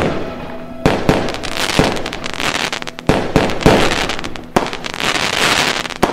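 Aerial fireworks going off: a string of sharp bangs, some in quick succession, with crackling between them.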